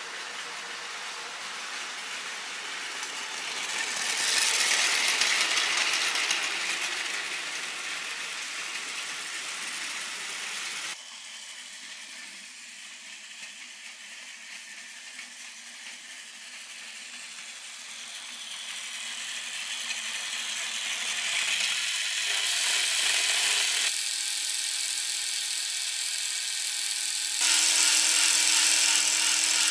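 Plarail Tobu 100 series Spacia toy train running on plastic track: its small battery motor and gears whirring, the wheels rattling over the track joints. It grows louder as the train comes close about four seconds in, drops suddenly to a quieter run, and builds up again toward the end.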